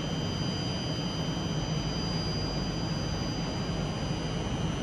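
Steady outdoor railway-station background noise: an even low rumble with a thin, high-pitched whine held on a few steady tones, and no distinct events.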